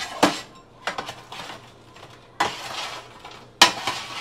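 Cutlery clinking and scraping against a dish: a string of separate clinks and clatters, with one longer scrape about two and a half seconds in.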